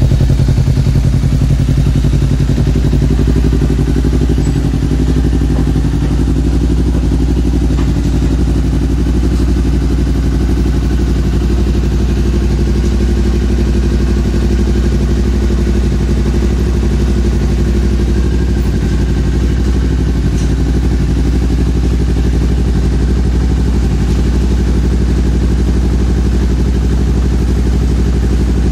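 Honda CBR250RR's parallel-twin engine idling steadily through a Prospeed Viper full-system aftermarket exhaust.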